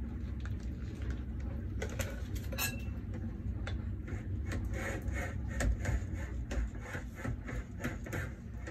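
A metal offset spatula spreading thick cream in a springform pan, making a run of light scrapes and clicks that grows busier about halfway through. A steady low hum runs underneath.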